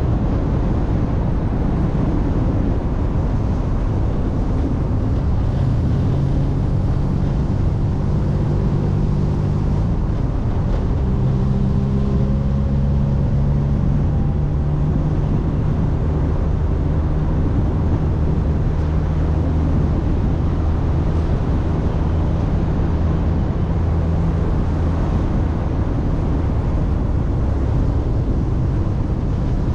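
A vehicle's engine running steadily under a constant low rumble, its hum shifting pitch a few times.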